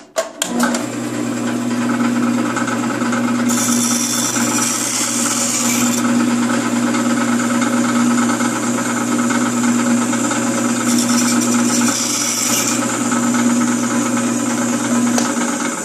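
Bandsaw running steadily, switched on just after the start and off near the end. Twice it cuts through a 1/4-inch wooden dowel, each cut a hiss lasting a second or two, cutting 3-inch axles.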